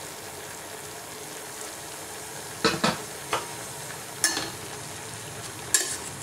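Chopped beans and carrots cooking in a steel pot with a steady hiss, while cooked moong dal is added. About five sharp knocks of a spoon on the steel pot come in the second half.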